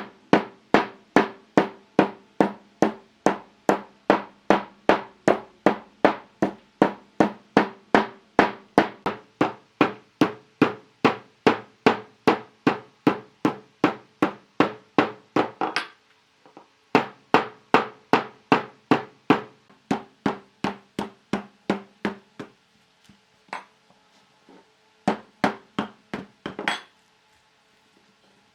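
Steady hammer blows, about two and a half a second, each with a short ringing tone. They break off about 16 seconds in, resume for several seconds, then thin out to scattered blows near the end.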